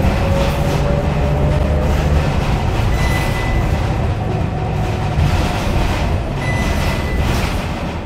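Scania K230UB bus's five-cylinder diesel engine running under way, heard from inside the cabin: a steady low drone with road and tyre noise, and a whine that rises slowly in the first couple of seconds.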